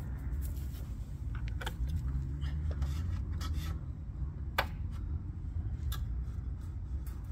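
Footsteps on pine-needle ground, then small handling sounds of a cordless tool against a wooden post: rubbing, scraping and scattered clicks, with one sharp click about four and a half seconds in. A low steady rumble runs underneath.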